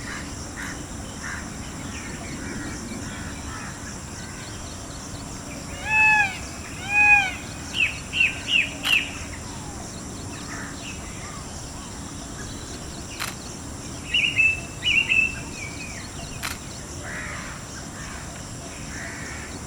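Indian peafowl (blue peacock) calling: two loud, rising-then-falling wailing calls about a second apart, followed by a quick run of shorter, higher notes, and another short burst of calls later on. Small birds chirp faintly underneath a steady high background hiss.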